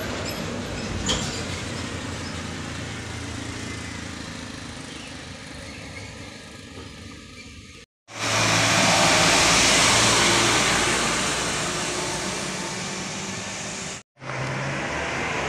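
Trucks' engines running as they pass along the road, heard as road traffic in three short stretches with two brief silent breaks from edits. The loudest is an Isuzu light truck driving past close by in the middle, rising then fading.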